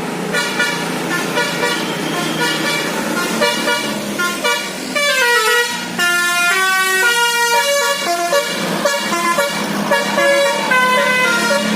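Basuri 'telolet' musical vehicle horn playing a tune: a run of held notes stepping up and down in pitch, with a few quick downward-sliding notes about five seconds in, over a steady low hum.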